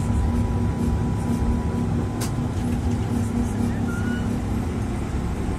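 Tatra T3SUCS tram running, heard from inside the passenger cabin: a steady low rumble with a thin steady hum above it, and one sharp click about two seconds in.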